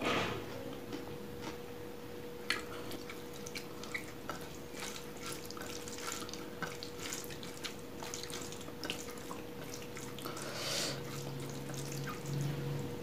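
Close-miked fingers mixing and squeezing rice with oily chicken curry gravy on a plate: scattered wet clicks and squelches, a few a second.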